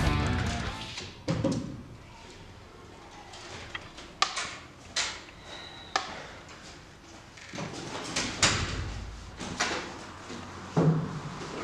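A wooden classroom door opening and later swinging shut, with scattered knocks, footsteps and the handling of a fabric school bag. The tail of music fades out at the very start.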